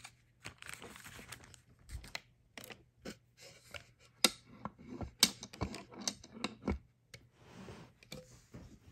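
Handling noises: scratchy rustling with scattered sharp clicks, the two loudest about four and five seconds in.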